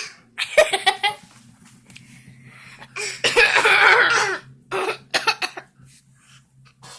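A baby's playful coughs, copying an adult's cough: several short coughs with a longer run of coughing a little past the middle.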